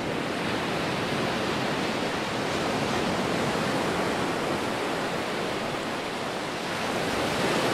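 Steady rushing wash of ocean surf breaking on rocks.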